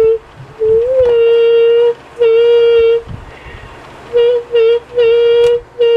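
A young girl singing long held notes, nearly all on the same pitch, in separate stretches with short breaks between them.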